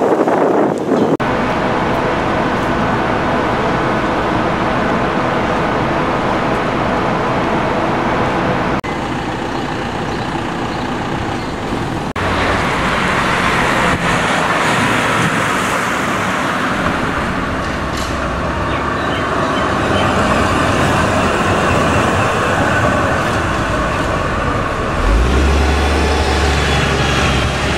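Road traffic noise from a busy city street, a steady wash of passing vehicles that shifts abruptly a few times, with a deep low rumble from a passing vehicle near the end.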